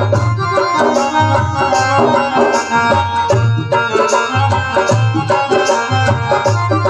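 Instrumental interlude of Indian devotional bhajan music: a hand drum keeps a steady beat under a held melody line, with no singing.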